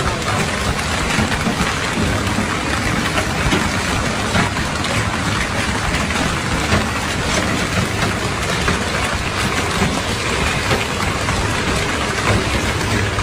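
Heavy storm downpour: a loud, steady hiss of falling water with scattered sharp hits, over a low steady hum.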